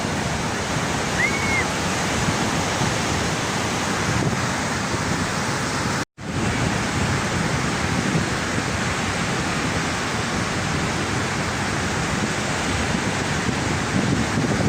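Sea waves breaking and washing on a beach, a steady rush of surf. The sound drops out for an instant about six seconds in.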